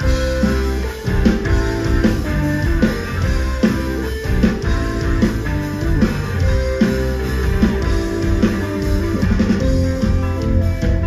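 Indie rock band playing live: electric guitars over bass and a drum kit with a steady beat.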